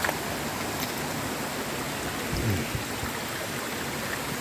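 Steady rush of a waterfall's river water, with a brief low rumble about two and a half seconds in.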